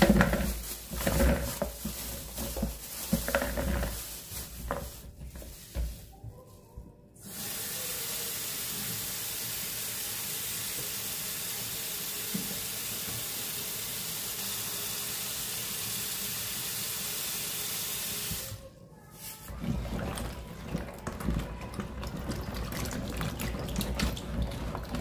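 Kitchen tap running steadily into a plastic bowl of okra pods in a stainless steel sink, starting suddenly about seven seconds in and shutting off about eleven seconds later. Before it, a plastic bag rustles as the okra is tipped into the bowl; after it, hands swish and rub the okra pods in the water as they are washed.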